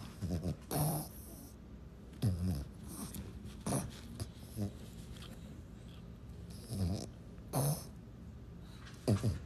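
A small French Bulldog making short nasal snorts and snuffles, about nine of them at irregular intervals, some close together in pairs.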